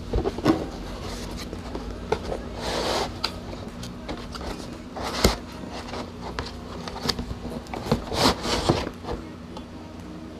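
Cardboard box and molded pulp packaging tray being handled and slid out, with rustling, scraping swishes and several sharp knocks. The swishes come about three seconds in and again near eight seconds. A steady low hum runs underneath.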